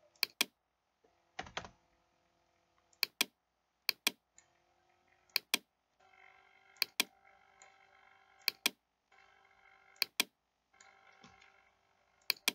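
Computer mouse clicking: about eight sharp clicks, each a quick press-and-release pair, spaced a second or two apart. A faint steady hum sits under the clicks through the middle of the stretch.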